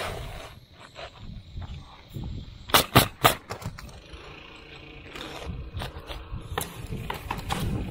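Pneumatic roofing nailer firing three nails in quick succession about three seconds in, with softer scraping and rustling of asphalt shingles being handled and trimmed around it.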